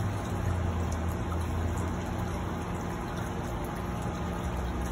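Steady low mechanical hum with an even hiss underneath.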